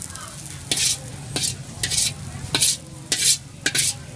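Steel wok over a charcoal stove being stirred and scraped, about six short strokes roughly every half second, with sizzling from the hot pan and a steady low hum underneath.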